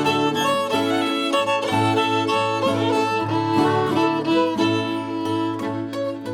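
Old-time string band playing an instrumental break, the fiddle carrying the tune over a lower accompaniment that changes notes.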